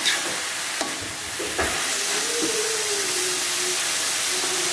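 Genjer (yellow velvetleaf) stir-frying in a hot metal wok: a steady sizzle, with a metal spatula knocking and scraping against the wok a few times in the first couple of seconds.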